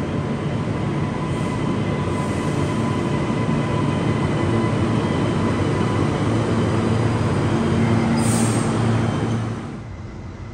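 Queensland Rail NGR electric multiple unit (unit 737) pulling into the platform and slowing to a stop, its motors and wheels running with a steady rumble and a faint whine. There is a short hiss about eight seconds in.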